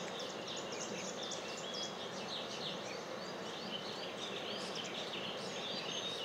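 Many small birds chirping together: short, high, quick chirps overlapping irregularly over a steady background hiss.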